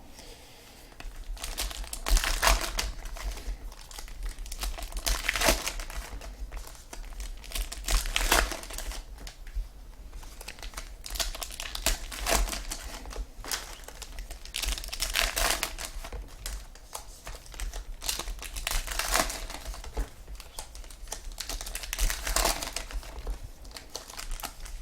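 Foil trading-card pack wrappers crinkling and tearing as packs are ripped open, in irregular bursts every second or two.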